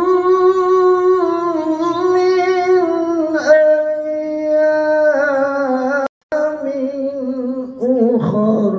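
A man's voice chanting Quranic recitation (tilawah) into a handheld microphone, holding long, wavering, ornamented notes. The sound drops out for a moment about six seconds in.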